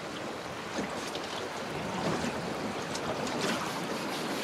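Wind and river water noise aboard a small fishing boat: a steady rushing haze with a few faint knocks.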